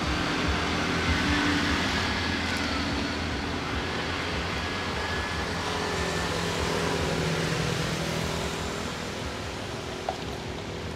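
Steady engine rumble with a hum that shifts slowly in pitch, and a short click about ten seconds in.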